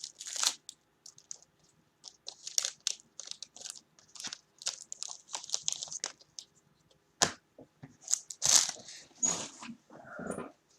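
Crinkling and rustling of sports-card packaging and cards being handled: a string of short, sharp crackles.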